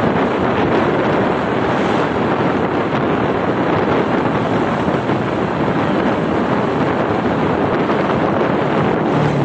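Steady wind noise rushing over the microphone of a moving motorcycle, a constant dense rumble that buries any engine sound.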